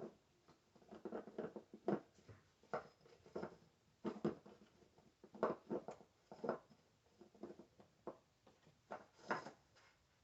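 Irregular knocks, clicks and clatters of hands and tools working on an ATV's plastics and fittings, about twenty in all.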